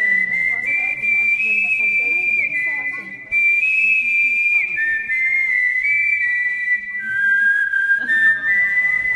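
A slow whistled melody of long, high, pure notes stepping up and down in pitch, with softer, lower sounds beneath that thin out in the middle.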